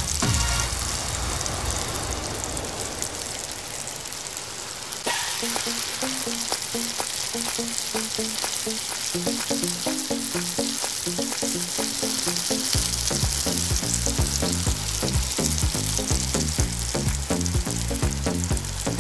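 Gulab jamun dough balls deep-frying in hot oil: a steady sizzle with fine crackles. Background music comes in about five seconds in, and a heavy beat joins at about thirteen seconds.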